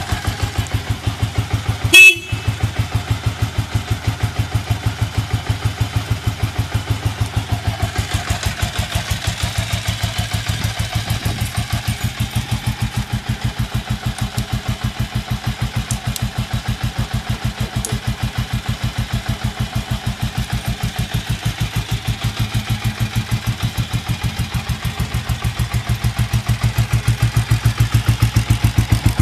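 Ducati Monster 400's air-cooled L-twin idling through an aftermarket slip-on muffler, a steady pulsing beat. About two seconds in, the bike's horn sounds briefly, the loudest sound. The exhaust beat gets louder near the end.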